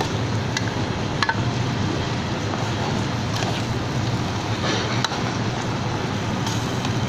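A metal ladle stirring thick curry in an aluminium pot, tapping the pot lightly a few times, over a steady rushing background with a low hum.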